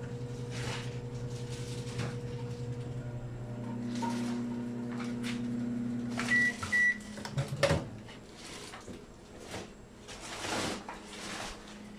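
Microwave oven running with a steady hum that stops about six seconds in as the timer runs out. Two short beeps follow, then a clunk as the door is opened, the loudest sound, and then a bowl being handled.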